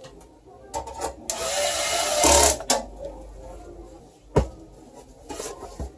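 Computer parts being handled during assembly: scattered clicks and knocks, with a loud rustling, hissing burst lasting about a second and a half starting just over a second in.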